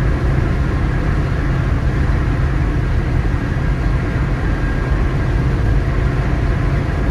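Steady low rumble of tyres and engine heard from inside a car's cabin while cruising on a motorway.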